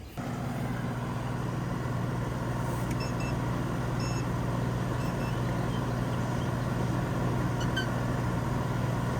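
Central air-conditioning condensing unit coming on suddenly and running: a steady compressor hum under the whoosh of the condenser fan.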